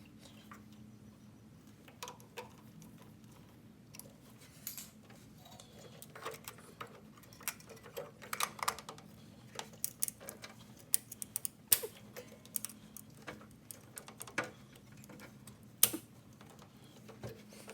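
Irregular clicks, taps and brief scrapes of hands and tools working a short rubber fuel hose onto a metal fuel line and a mechanical fuel pump, with a faint steady hum underneath.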